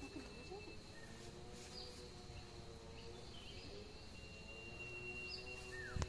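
Rural garden ambience: birds chirping now and then over a steady high insect whine, with one sharp knock right at the end.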